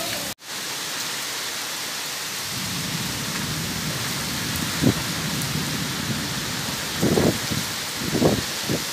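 Steady rain falling, an even hiss of drops, with a few short low thumps in the second half.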